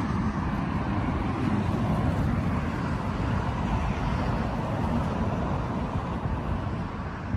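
Low, choppy rumble of wind buffeting the microphone, steady throughout.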